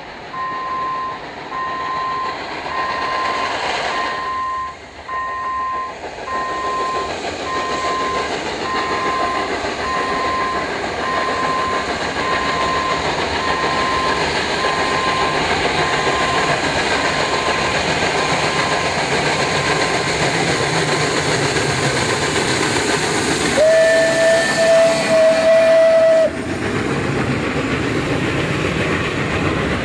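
ČSD class 434.2 steam locomotive 434.2186 approaching and passing with its train of coaches, the running noise growing louder as it nears. About 24 seconds in, its steam whistle gives one long blast of about two and a half seconds, and then the coaches roll by. A beeping, about two beeps a second, sounds through the first half.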